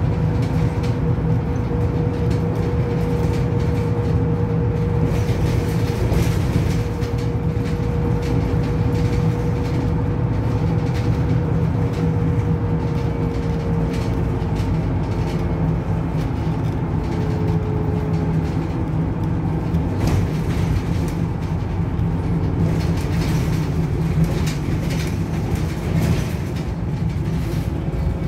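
Autosan M10LF city bus heard from inside the passenger cabin while driving: a steady low engine and drivetrain drone with road noise. A thin whine runs through it and drops slightly in pitch about halfway through, and short rattles and clicks from the cabin fittings come and go.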